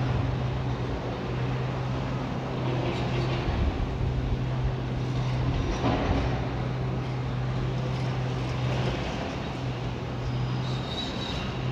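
Heavy demolition machinery's diesel engine running steadily at a low hum, with a few louder rough swells of noise: near the start, about three and a half seconds in and about six seconds in.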